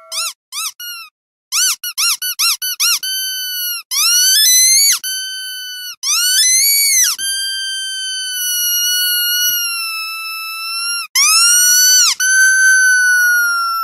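Rubber squeaky dog toy squeezed over and over: about a dozen short quick squeaks, then longer high squeals of about a second each, one held for about four seconds.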